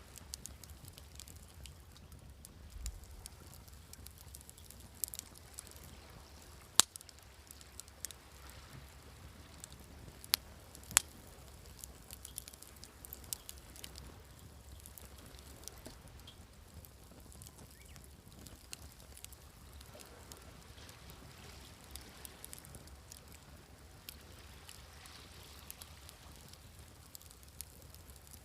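Wood fire crackling, with irregular sharp pops, a few of them loud, over a faint steady wash of sea waves.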